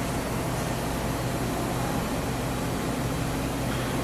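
Doosan DBC-130L-II CNC horizontal boring mill running, a steady low hum under an even whirring hiss with no change in pitch or level.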